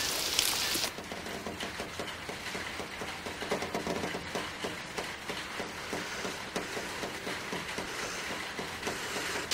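Heavy rain hiss that cuts off suddenly about a second in. It gives way to a much quieter, muffled ambience of faint rain patter over a low rumble.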